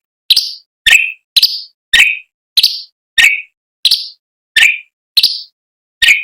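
Orange-bellied leafbird (cucak cungkok) giving a rapid series of short, sharp call notes, about ten in all, roughly two a second, alternating between a lower and a higher pitch.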